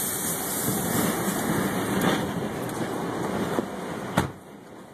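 Tornado wind rushing and gusting around the vehicle and over the microphone. A single sharp knock comes about four seconds in, after which the rushing drops noticeably quieter.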